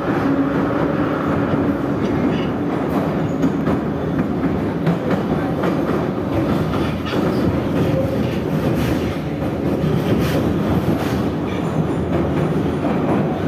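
Metro train running at speed, heard from inside the carriage: a loud, steady rumble of wheels on rail with scattered clicks.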